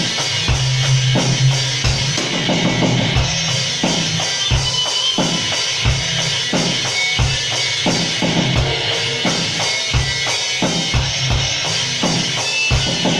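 Live band jamming, with a drum kit (kick and snare) keeping a steady beat under sustained low notes from other instruments. It is recorded loud and with bad sound quality.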